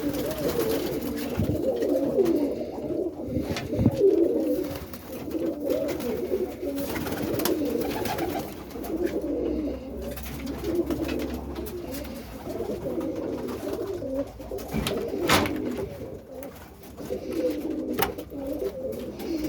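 Many roller pigeons cooing together in their loft: a continuous chorus of overlapping coos, with a couple of sharp clicks in the last third.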